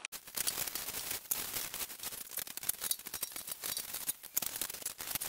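Plastic wrap and packing foam crinkling and rustling as they are pulled off an aluminum fuel tank, in a dense run of irregular crackles.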